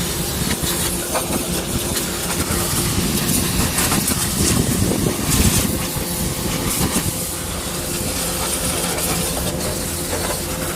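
Pressure-washer jet spraying water over an air conditioner's outdoor unit: a steady rushing hiss with a constant hum beneath it.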